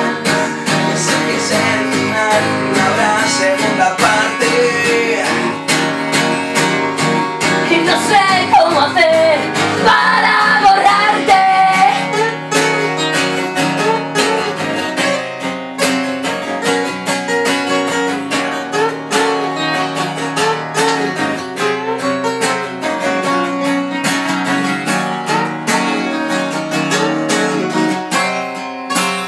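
Acoustic guitars strumming chords in an instrumental passage of a song played live, with a gliding melody line rising over them about eight to twelve seconds in.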